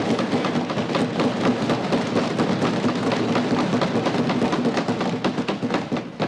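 A chamber full of legislators thumping on their wooden desks and clapping: a loud, dense, rapid clatter of knocks that starts to thin out near the end.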